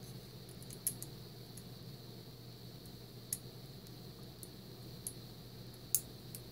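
A thin steel tool clicking and ticking against the pins and core of a Mul-T-Lock Interactive lock cylinder: a few scattered, light metallic clicks, the sharpest about six seconds in.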